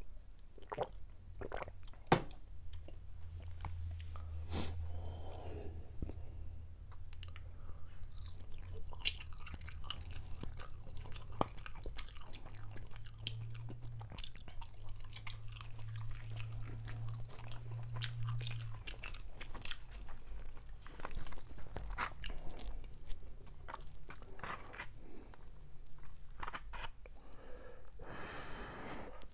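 Close-miked chewing: a person eating with many small wet mouth clicks and smacks, picked up by a clip-on microphone on the chest.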